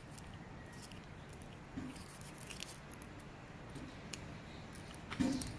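Faint small metallic clicks and ticks, a few at a time and spread out, as a key is fitted into a picked-open lock.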